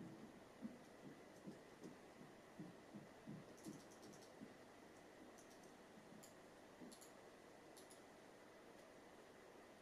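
Cat snoring faintly: short, soft low snores at about two a second that thin out and stop about halfway through, with a few faint high clicks in between.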